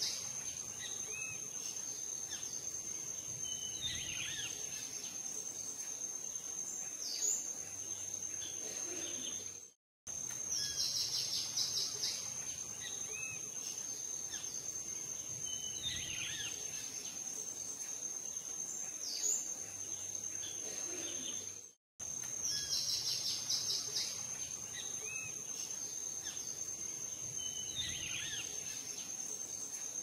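Looped nature ambience: a steady high insect trill with scattered short bird chirps and calls. The same stretch repeats about every twelve seconds, cutting out briefly twice where the loop restarts.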